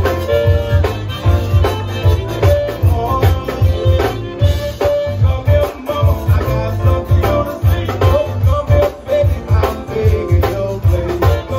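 Live zydeco band playing with no vocals: accordion over electric bass, electric guitar and drum kit, with a steady, even dance beat.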